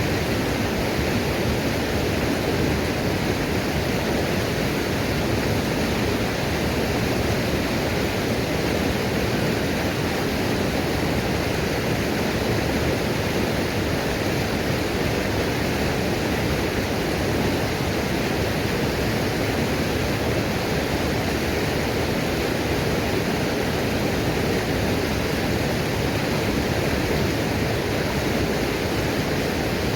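Waterfall pouring in a steady, unbroken rush of water.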